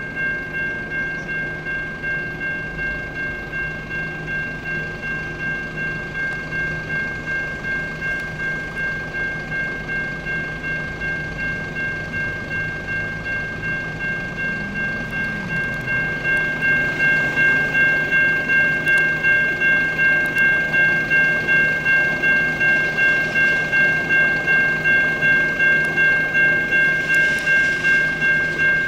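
Electronic railroad crossing bell (Safetran Type 3 low-tone e-bell) ringing steadily at about two strikes a second while the crossing signals are active. It grows louder about halfway through.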